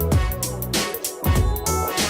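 Background music: an electronic track with a steady drum beat and heavy bass.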